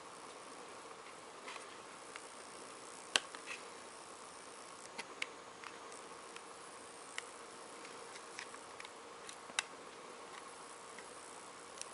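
Faint scattered clicks and taps of fingers working a tablet's battery connector loose from the motherboard by hand, the sharpest about three seconds in, over a steady low hiss with a faint hum.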